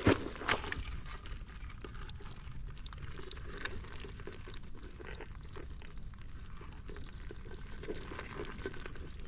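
Wet mud and water crackling and popping with many small scattered clicks. Two sharp knocks come right at the start.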